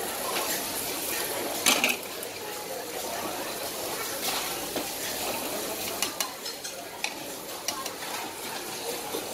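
Food sizzling on a hot flat griddle while metal utensils clink and scrape against it. There is a sharp clank about two seconds in, and a run of smaller clicks around six to seven seconds.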